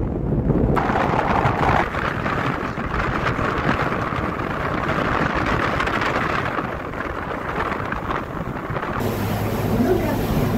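Wind buffeting the microphone on the open deck of a moving tour boat, over the low rumble of the boat's engine and the water. Near the end the wind noise gives way to a steadier engine hum with water hissing past.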